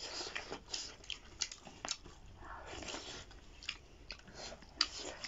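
Close-up eating sounds of people chewing and biting into duck meat eaten by hand, heard as irregular short wet clicks.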